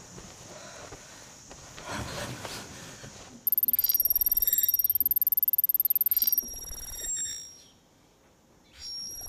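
Sci-fi computer interface sound effects: after a few seconds of soft rustling, a high, rapidly pulsing electronic tone with beeps starts suddenly and runs for about three seconds, then cuts off, and a few short electronic blips follow.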